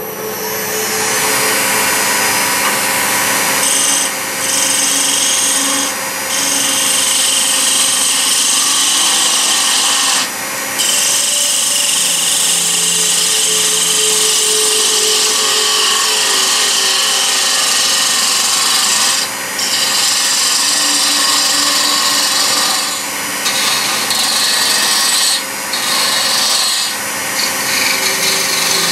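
Wood lathe running while a gouge cuts a spinning piece of ash, a steady loud hiss of the cut over the lathe's hum. The cutting sound drops out briefly several times.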